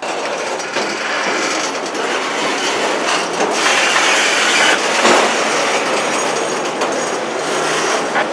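CN freight train rolling past at close range: a steady, loud rumble and rattle of the cars' wheels on the rails, starting abruptly.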